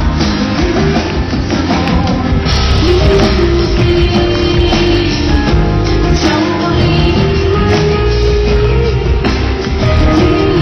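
Live rock music: a woman singing over a full band with drums and guitar.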